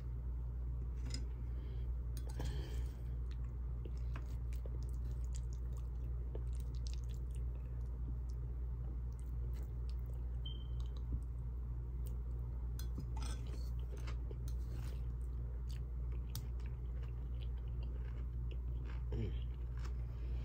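A person chewing a mouthful of beef and broccoli, with scattered small clicks, over a steady low hum.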